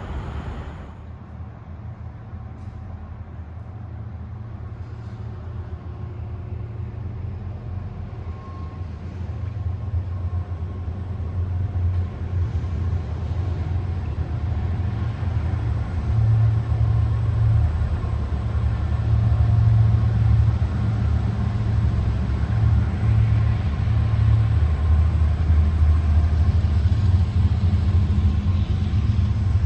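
A steady low rumble that grows louder through the first half and then holds.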